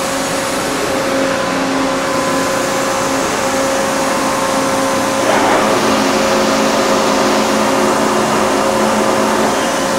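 1984 Niigata HN50A CNC horizontal machining center running under power, a steady machine hum with a constant whine as its spindle head traverses up and down. A brief surge of noise comes about five seconds in.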